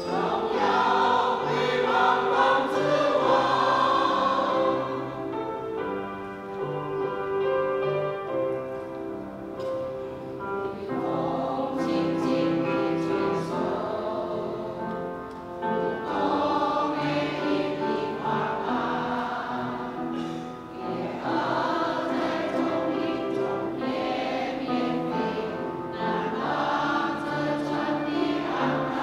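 Mixed church choir of women and men singing a hymn together, the phrases growing louder and softer in turn.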